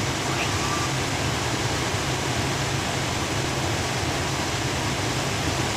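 Steady flight-deck noise of an airliner in flight: an even rush of airflow and air-conditioning hiss over a low engine hum.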